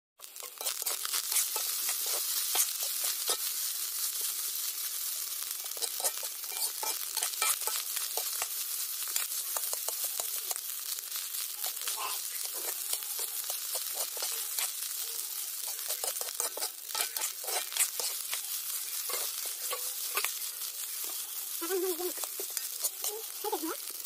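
Fish roe and rice frying in a black iron wok: a steady sizzle, with the spatula scraping and clicking against the pan as it is stirred.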